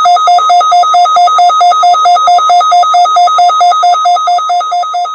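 Emergency Alert System-style attention tone: a loud, steady beep under a fast two-note warble that flips between a low and a high pitch about four times a second, easing off slightly near the end.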